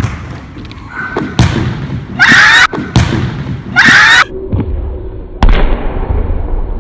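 A handball thudding on the wooden floor of a large sports hall and smacking into the goal, with four sharp echoing impacts, the loudest about five and a half seconds in. Two loud shouts from the kids come about two and four seconds in.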